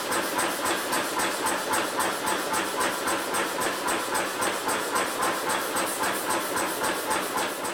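Power hammer striking a hot steel bar in a tong-forging die, a rapid, even run of blows at about five a second, forging the offset bit of a blacksmith's tong.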